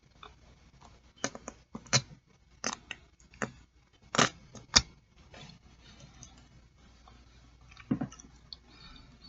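Close-miked eating of boiled chicken feet: wet chewing with a quick run of sharp clicks and crunches in the first half and one more near the end.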